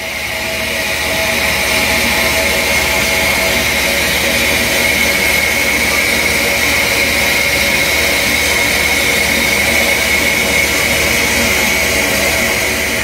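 Steady, loud hiss of steam inside the cab of Southern Railway #630, a 2-8-0 Consolidation steam locomotive, with a sharp tone sitting in the hiss and no chuffing beat.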